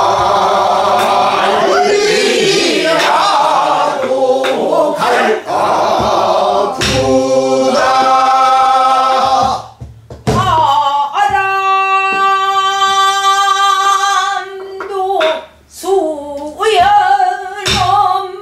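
A woman singing pansori in a strong, wavering voice, holding one long note for several seconds in the middle, while a buk barrel drum is struck with a stick between phrases.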